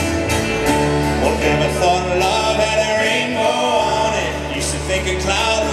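A live acoustic folk-rock band playing: strummed acoustic guitars, upright bass, piano and a kick drum, with voices singing over it.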